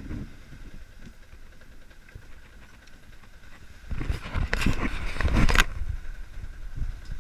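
Sailboat under way in a choppy sea: a low rush of wind and water. About four seconds in, a much louder, crackling rush of wind on the microphone lasts a little over a second and stops suddenly.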